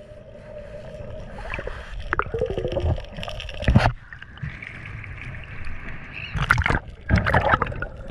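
Water around an action camera that dips in and out of the sea: a low underwater rumble with gurgling and small clicks, then a few loud splashes near the end as it breaks the surface and goes under again.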